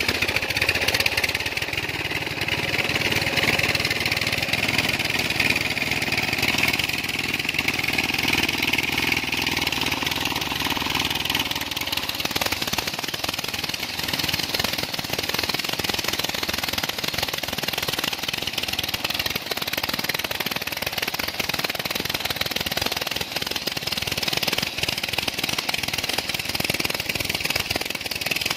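A single-cylinder diesel 'dugdugi' engine runs steadily with a knocking beat, driving a belt-driven centrifugal pump that is lifting water. The water gushes from the outlet pipe into a concrete tank, and from about twelve seconds in the rush of water drowns out the engine.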